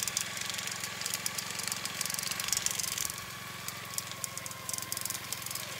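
Olive harvesting machine running: a small petrol engine drives a pole-mounted beater at a steady hum, with quick, irregular rattling clicks from the beater head working in the branches.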